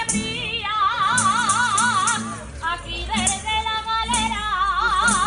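Jota singing: a single high voice holds long notes with a wide, heavy vibrato in two phrases, with a short break about halfway. Behind it, instrumental accompaniment keeps up regular sharp strokes.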